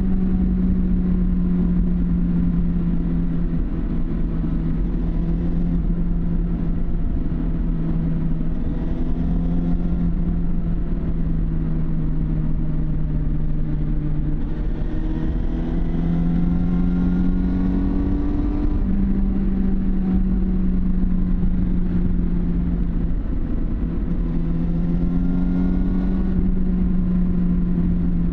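1999 Suzuki GSX750 Inazuma's inline-four running through its stock exhaust while riding at a steady pace. The engine note holds mostly even, easing off and picking up again several times.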